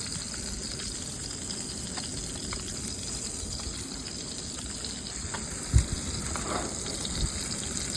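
Fish frying in olive oil on a portable propane grill: a steady sizzling hiss. A single sharp thump comes about six seconds in, with a lighter knock a second later.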